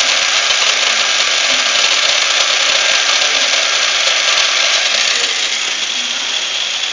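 Small DC gear motors of a hobby robot running forward with a steady whir, easing slightly about five seconds in.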